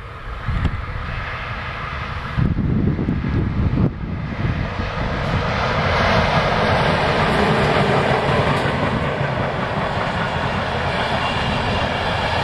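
Electric locomotive hauling a passenger train passing close by: a loud, steady rush of wheels on rail and running gear that builds about five seconds in and holds as the coaches go past. Gusts of wind buffet the microphone in the first few seconds.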